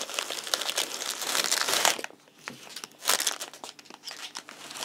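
Crinkling and rustling of a storage bag and its packaging being handled while a lantern pole kit is pulled out. It is dense for about two seconds, then breaks into a few separate rustles.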